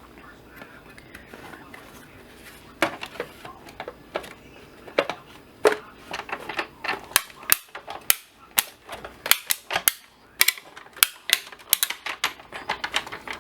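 Manual crank die-cutting machine pressing a stack of cutting plates, metal dies and 110 lb cardstock through its rollers, giving a run of sharp cracks and clicks as the dies cut. The clicks are sparse at first and come fast and close together from about halfway through.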